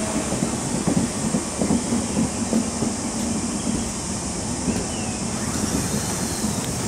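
Express train passenger coaches rolling past at speed: a steady low rumble of wheels on rails, with an irregular clatter from the wheels.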